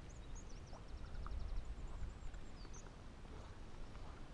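A small bird calling in short high chirps, with a quick trill of about eight rapid notes about a second in. Under it runs a low rumble that peaks about a second and a half in.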